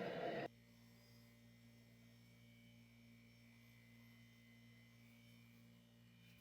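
Faint, steady low electrical hum, after a louder sound that cuts off abruptly about half a second in.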